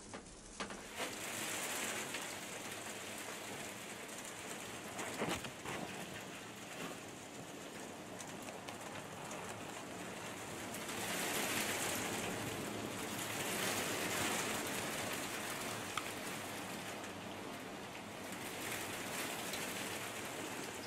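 Falling snow pattering steadily on a hunting blind, swelling and easing in waves, with a faint knock about five seconds in.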